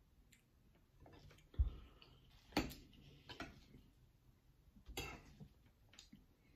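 A metal spoon clicking and scraping against a glass bowl of cereal and milk: a handful of separate faint clicks, with a duller knock about one and a half seconds in.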